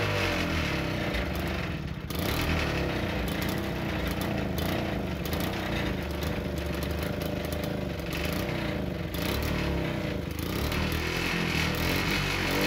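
Small engine of a Fimag portable generator running unevenly, its speed surging up and down again and again because the governor is not holding it steady. The owner puts this down to too much oil filled into the regulator housing.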